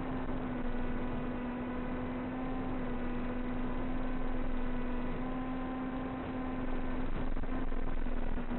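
A steady low hum with fainter higher tones above it, unchanging, over a constant rushing noise.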